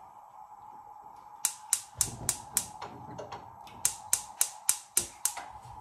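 Gas stove igniter clicking rapidly in two runs, about four clicks and then about six, as a burner is being lit.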